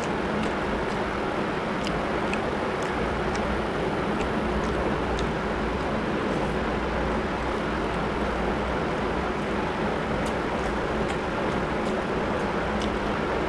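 Steady background noise with a low hum, over which faint short clicks and smacks of eating come and go: rice being mixed by hand and chewed.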